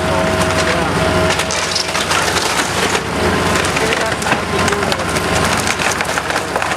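Wooden house structure cracking and splintering as it is torn down: a dense, continuous run of crackles and snaps, with a steady low engine hum underneath.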